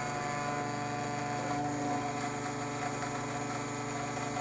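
Taig CNC mill running as it end-mills an aluminum part: a steady mechanical hum made of several held tones.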